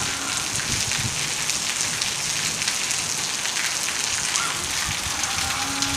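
Steady rain falling and splashing on wet, puddled ground, a dense even patter of drops.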